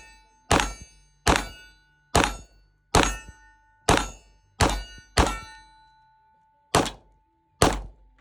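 Gunshots fired one after another, nine at roughly one a second, each sharp crack dying away quickly. A metallic ringing tone lingers between the shots.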